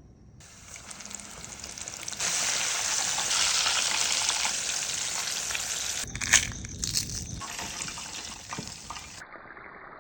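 Battered chicken wings frying in hot oil: a steady sizzle that grows louder about two seconds in, with a few sharp pops and crackles around the middle.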